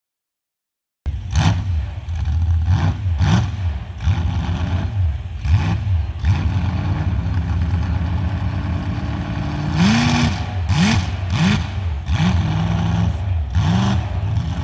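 A lifted mud-bogging pickup truck's engine revs in repeated bursts as it drives through a mud pit, over a steady low engine rumble. The sound starts abruptly about a second in, and a quick series of sharp revs comes near the end.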